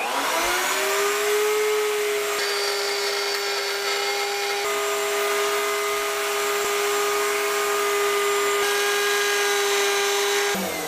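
Table-mounted wood router switched on, spinning up within about a second to a steady high whine. It runs while a wooden frame is fed past the bit in tiny bites to cut a rabbet, then is switched off near the end and winds down.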